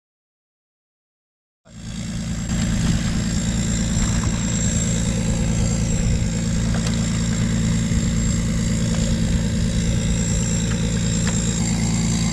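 After about a second and a half of dead silence, a steady motor-like hum sets in and holds a constant low pitch.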